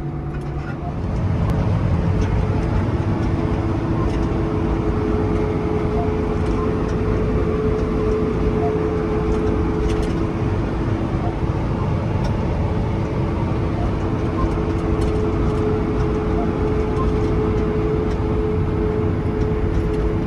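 Tractor pulling a grain cart on the road, heard from inside the cab: a steady engine rumble with a steady whine over it, growing louder about a second in and then holding.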